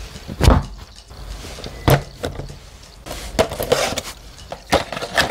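Cardboard toy box handled on a cutting mat: a few knocks as it is set down and turned, then scratching and scraping as a craft knife slits it open.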